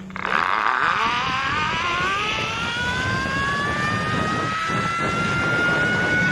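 Zip-line trolley pulleys running along the steel cable: a whine that starts about a third of a second in, rises in pitch as the rider picks up speed, then levels off, over a rushing noise.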